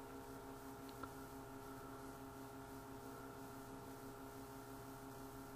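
Faint steady electrical hum, with a single faint click about a second in.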